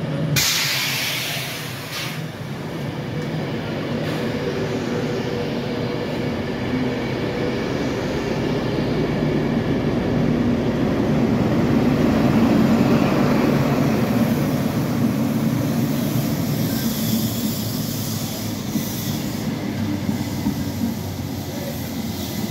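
A Class 43 HST diesel power car leading a rake of coaches runs in alongside the platform, a steady rumble of engine and wheels on rails that builds to its loudest about halfway through as the power car passes close. The coaches then roll by, with a higher hiss over the rumble in the last few seconds.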